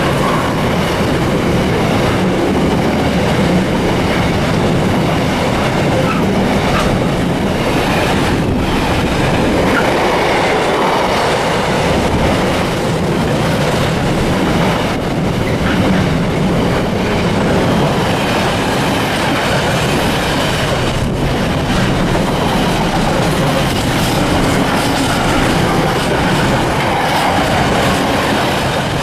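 Container flat wagons of an intermodal freight train rolling past, the wheels running on the rails with a loud, steady noise. The sound starts to drop away at the very end as the tail of the train clears.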